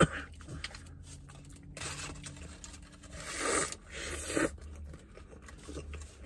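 Paper burger wrapper crinkling and rustling in the hands in two spells, the first about two seconds in and the second a little after three seconds, with a sharp click at the very start.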